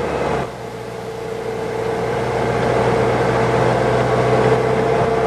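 Car engine and road noise while driving, a steady hum that drops suddenly about half a second in and then builds steadily louder.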